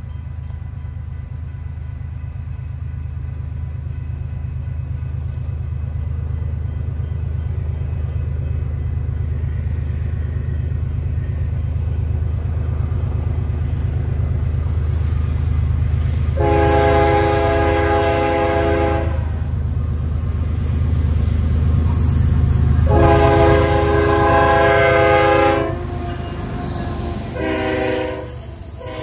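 BNSF diesel freight locomotive approaching with a low engine rumble that grows steadily louder. It then sounds its multi-tone air horn: two long blasts and a short one, the opening of the standard grade-crossing signal, as the lead unit comes by.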